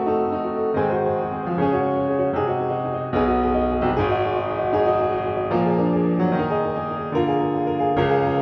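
Solo piano music, with notes and chords changing about once a second.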